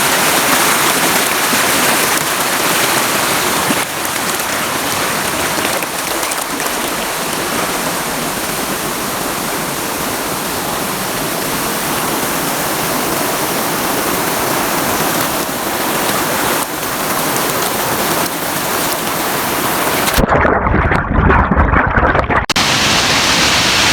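Waterfall water rushing and splashing, a steady loud hiss. For about two seconds near the end the sound turns muffled and low, then comes back as before.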